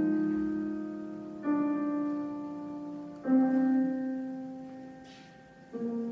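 Piano playing slow, sustained chords: three chords struck about two seconds apart, each left to ring and fade before the next.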